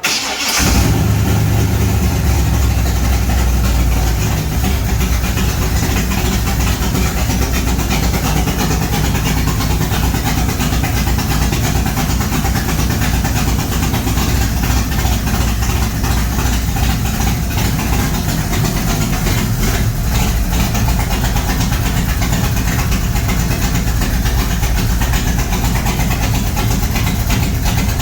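A G-body Chevrolet Monte Carlo SS's V8 engine starts about half a second in, catching almost at once, runs a little louder for the first few seconds, then settles into a steady idle. This is its first start after the wiring and hoses were replaced following an under-hood fire.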